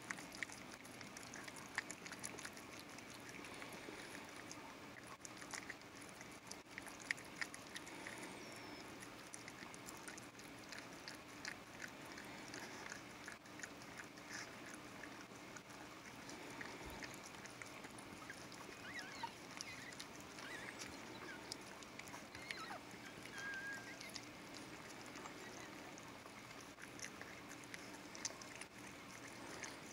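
Mother dog licking and cleaning her newborn puppy: faint, irregular wet licking clicks, with a few faint high squeaks from the puppy in the second half.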